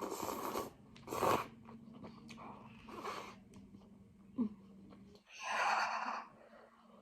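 Noodle soup being slurped in several short bursts, the longest and loudest about five and a half seconds in.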